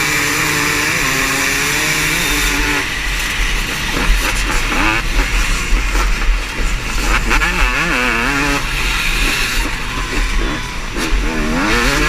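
Motocross race bikes' engines revving hard, their pitch repeatedly rising and falling and overlapping as they race.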